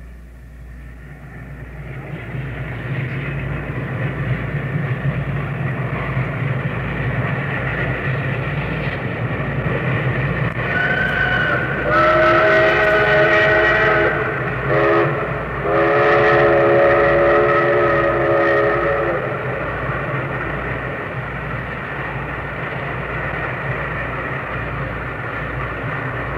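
Steam locomotive running, its noise building over the first few seconds. Midway its chime whistle sounds a long blast, a short one, then another long blast.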